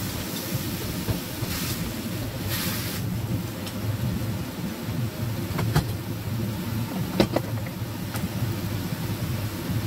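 Napa cabbage stir-frying in a steel wok over a gas burner: a steady low rumble with a sizzling hiss that swells briefly in the first few seconds, and a few light clicks later on.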